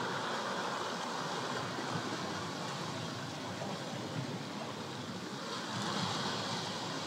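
Small sea waves washing and breaking over low, seaweed-covered shore rocks, a steady rush of water that swells a little about six seconds in as a wave breaks.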